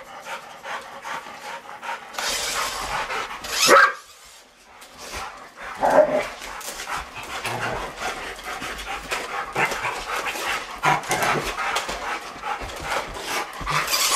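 Rottweilers panting, with a short bark about four seconds in and another about six seconds in.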